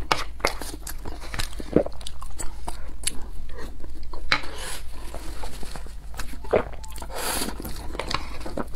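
Close-miked eating sounds: chewing and wet mouth smacks on a mouthful of curry rice, with a wooden spoon scraping and scooping in the pan.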